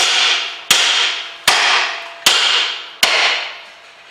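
Hammer blows on a ball joint splitter wedged against a car's front suspension ball joint: five blows about three-quarters of a second apart, each ringing out after the strike. The ball joint is stuck and does not let go under these blows.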